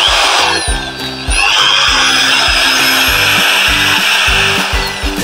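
Bosch GBM 400 400-watt corded electric drill running, a steady high motor whine that gets louder about a second in.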